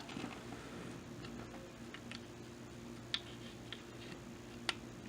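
A few faint, scattered clicks and ticks of a Glock 19 pistol's steel slide and polymer frame being handled as the slide is lined up on the frame during reassembly.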